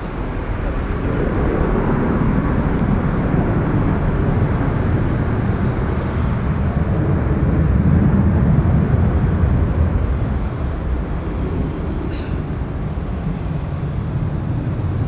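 Jet noise from an Airbus A330 MRTT Voyager's two Rolls-Royce Trent 772B turbofans at takeoff thrust as the tanker climbs away: a steady deep rumble that swells to its loudest about eight seconds in, then slowly fades.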